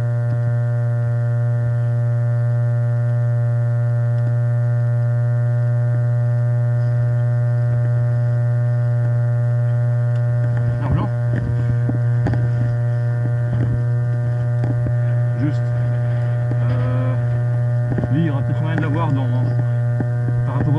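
Loud, steady electrical hum with a buzzy stack of overtones, unchanging as the view moves. In the second half, scattered short clicks and knocks sound through it.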